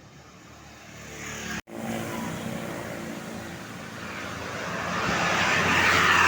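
Tour bus driving past, its engine and tyre noise growing louder as it approaches. The sound drops out completely for an instant about one and a half seconds in.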